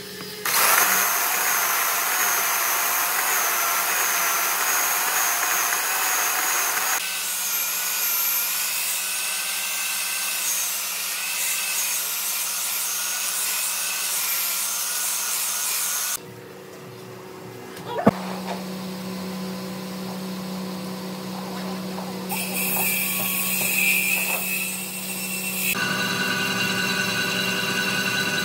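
Electric power tools cutting and shaping doussie hardwood: a steady high-pitched whine with slightly wavering pitch, heard as several short clips joined by abrupt changes. A single sharp knock about eighteen seconds in.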